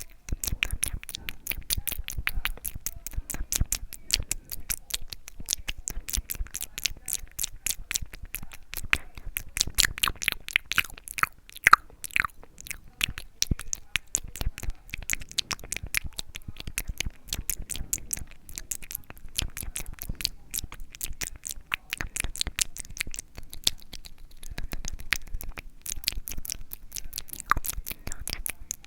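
ASMR mouth sounds: a rapid, continuous run of clicks and smacks from lips and tongue, several a second, with one louder click about twelve seconds in.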